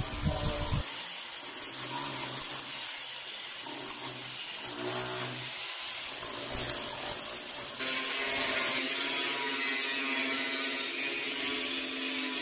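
Electric chipping hammer breaking up the edge of a concrete slab. About eight seconds in it gives way to an angle grinder cutting steel tubing, with a steady whine.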